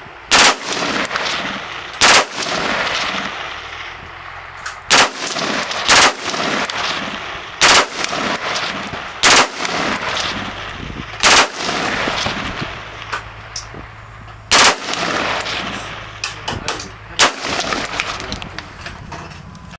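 Short-barrelled M16-pattern rifle with a 7-inch barrel firing about nine loud shots, irregularly spaced one to three seconds apart.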